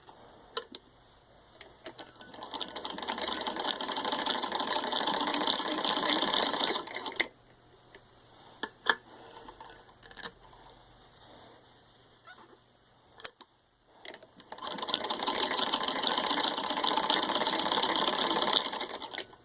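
Antique Singer 15K sewing machine stitching fast through five layers of thick denim in two runs of about five and four and a half seconds, with a few sharp clicks in the pause between. It sews through it all pretty easily.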